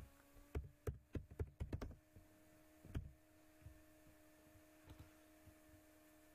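Computer keyboard keys tapped in a quick run of about eight strokes, followed by two single mouse clicks a couple of seconds apart, over a faint steady hum.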